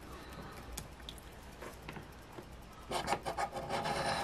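A coin scratching the coating off a scratch-off lottery ticket in quick rasping strokes. It is quiet apart from a few faint ticks at first, and the rapid scraping starts about three seconds in.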